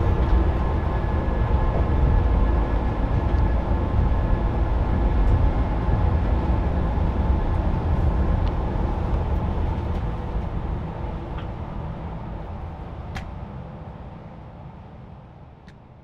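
Cabin noise of a moving coach bus: a steady low engine and road rumble with a few faint rattles and clicks, fading out over the last several seconds.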